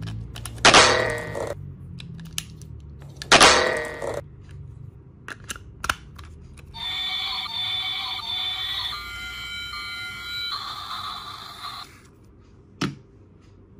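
Plastic scraping and clicking as AA batteries are pushed past the spring into a toy train's battery compartment, twice. Then a few seconds of electronic beeping tones that change pitch twice, and a single sharp click near the end.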